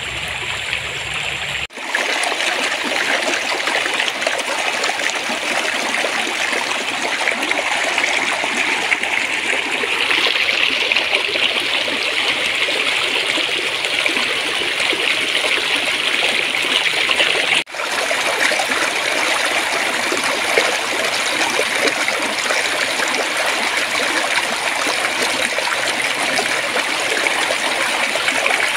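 Stream water flowing and babbling steadily. The sound is an even rushing trickle with two brief dips in loudness, once early on and once a little past halfway.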